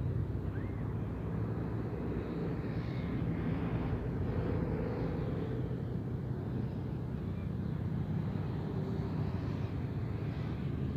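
Steady low machine drone: an engine-like hum that holds one pitch and loudness throughout, with a faint outdoor hiss above it.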